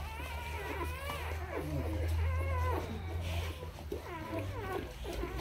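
Newborn XL American Bully puppies squeaking and whining, several high, wavering cries overlapping, over a steady low hum.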